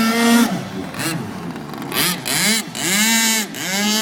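Radio-controlled BlackJack boat's motor whining as the throttle is blipped, its pitch rising and falling again several times.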